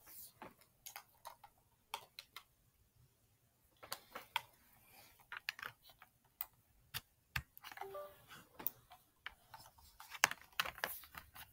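Faint, irregular clicks and taps of a computer mouse and keyboard.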